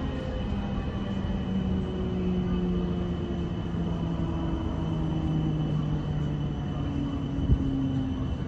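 Class 455 electric multiple-unit train running: a steady rumble with motor whine tones that shift in pitch, and a single sharp knock near the end.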